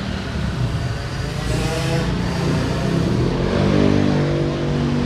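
Road traffic: motor vehicle engines running past, with one engine's hum growing louder and steadier in the second half.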